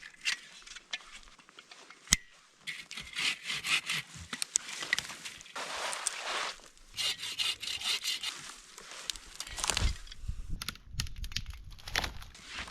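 Footsteps crunching through snow, an uneven run of crunches, with one sharp snap like a breaking twig about two seconds in.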